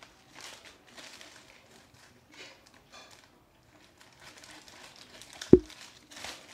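Plastic packaging crinkling and rustling in short bursts as a small mail-order parcel is opened by hand, with a single sharp knock about five and a half seconds in.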